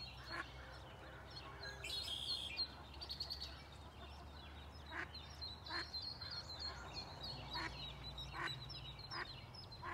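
A mallard hen calling her ducklings with short quacks repeated a little under a second apart from about halfway through, while the ducklings give high-pitched peeps throughout.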